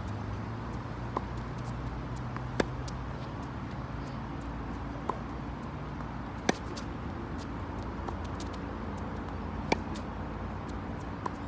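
Tennis rally on a hard court: sharp pops of the ball struck by rackets and bouncing, one every second or few, the loudest about two and a half, six and a half and nine and a half seconds in, over a steady low hum.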